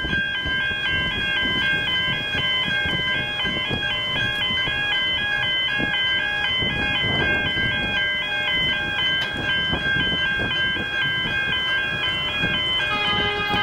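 Electronic warning alarm warbling steadily and rapidly back and forth between two tones, with rough low rumble and wind noise underneath.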